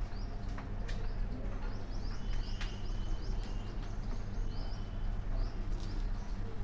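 A small bird chirping over and over in short rising notes, about twice a second, over a steady low hum.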